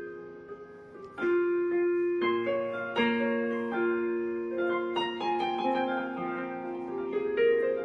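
Solo piano playing a slow, gentle piece: sustained chords and melody notes that ring on, the piece softening in the first second before new chords enter.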